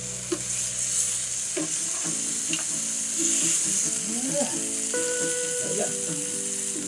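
Steak, sausages and vegetables sizzling steadily on a hot electric grill plate, with a few short clicks of metal tongs as the meat is turned.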